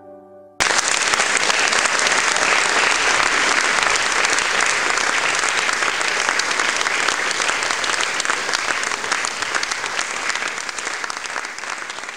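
Audience applauding, starting suddenly about half a second in, just after the last faint notes of music die away, and slowly fading toward the end.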